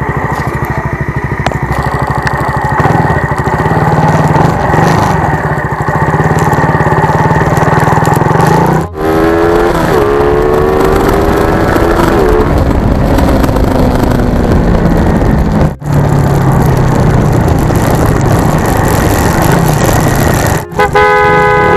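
Suzuki Raider 150 Fi's single-cylinder four-stroke engine running as the motorcycle is ridden, its pitch climbing as it accelerates about nine seconds in and again near the end.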